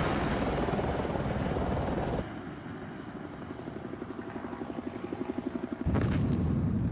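A missile's rocket motor rushing as it leaves an Apache helicopter, cutting off sharply about two seconds in. Then a helicopter's rotor beat grows steadily louder, until a loud explosion hits near the end.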